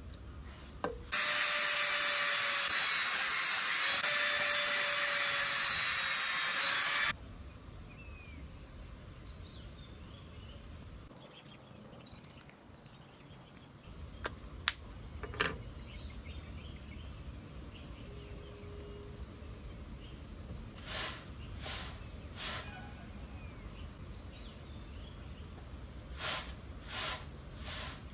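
Small handheld electric power tool running with a steady high whine and a grinding hiss. It starts about a second in and cuts off suddenly about six seconds later. Later there are two sets of three short, soft strokes.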